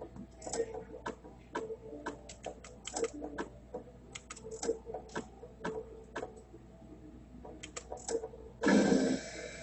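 Electronic skill-game slot machine's sound effects as the reels spin and stop: irregular quick clicks and ticks with a short beep-like tone that keeps coming back. A loud rush of noise lasts about half a second near the end.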